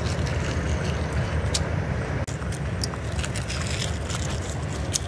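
A steady low rumble, with scattered light clicks and crackles as boiled-egg shells are cracked and peeled by hand.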